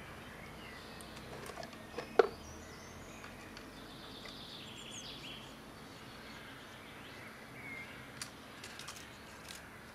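Birds singing in the background, a single sharp knock about two seconds in, and a few small dry clicks near the end as a red squirrel gnaws a walnut in a wooden feeder box.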